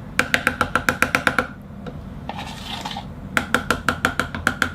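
A utensil tapping rapidly against a ringing bowl, two runs of about eight quick taps a second with a short pause between, knocking melted chocolate off into the food processor.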